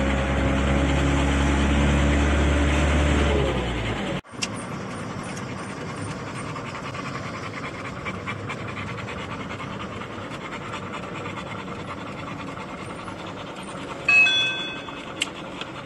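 Camper van engine and road noise heard from inside the cab, a steady low hum, cutting off abruptly about four seconds in. A quieter steady rushing noise follows, with a short high-pitched beep near the end.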